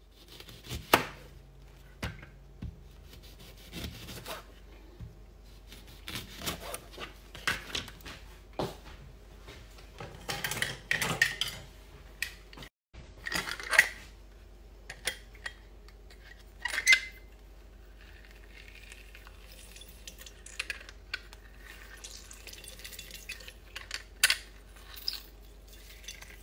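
Kitchen handling sounds: scattered clacks and knocks of a hand-held lemon squeezer, utensils and glassware on the counter as lemon halves are pressed, with a few short rustling scrapes in between.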